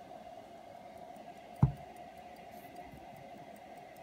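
A single dull thump about a second and a half in as the gold pocket watch is handled, over the faint, rapid, even ticking of its going movement and a steady low hum.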